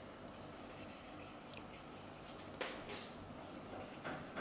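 Faint strokes of a marker pen writing on a whiteboard: a few separate scratchy strokes, the longest about two and a half seconds in and a shorter one near the end.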